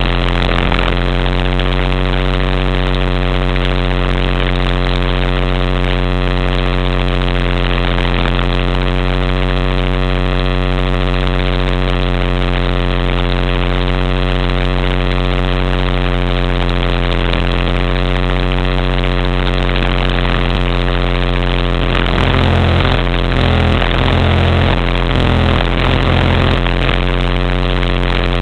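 HK-500GT electric RC helicopter in flight, heard from a camera mounted on it: a steady drone of the motor, drivetrain and rotor. Near the end there are a few seconds of low, pulsing throbbing.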